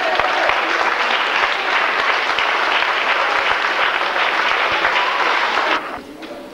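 Audience applauding: dense, steady clapping from a crowd that cuts off suddenly near the end.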